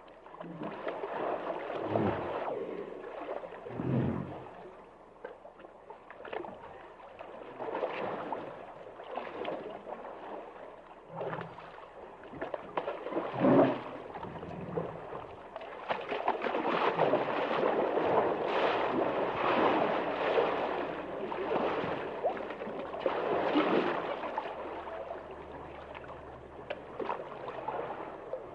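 Hippopotamuses in water: several short, low grunts among sloshing, gurgling water, with a longer, denser spell of water noise in the second half.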